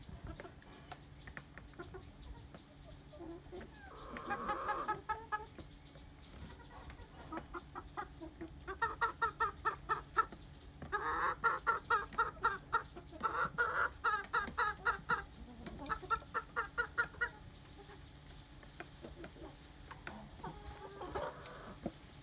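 Chickens clucking in quick runs of repeated clucks, about four or five a second. The calls come in a short burst, then a long busy stretch through the middle, then one more short run near the end.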